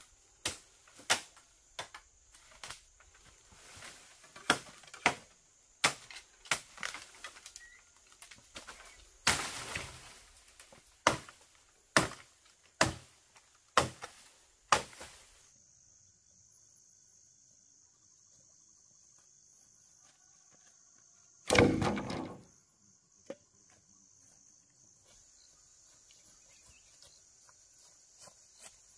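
Machete chopping at the base of a bamboo culm: sharp, separate blows about one a second for the first half. This is followed by a single loud crash about two-thirds through.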